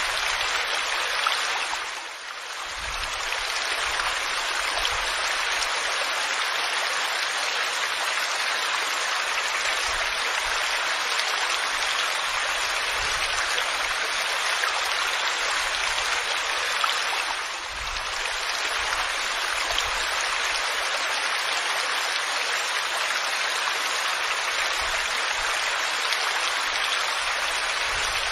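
Waterfall: a steady rush of falling water, with no tune or voice over it. It dips briefly twice, about two seconds in and again past the middle.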